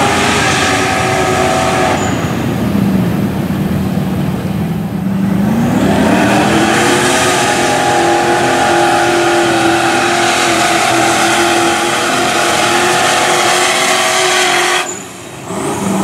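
Mud-bogging truck's engine running under load as its paddle tires churn through deep mud: it holds one pitch, revs up about five seconds in and holds a higher steady pitch, then breaks off about a second before the end.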